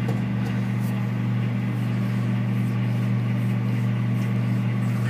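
Microwave oven running while heating oatmeal: a steady hum with the fan blowing underneath.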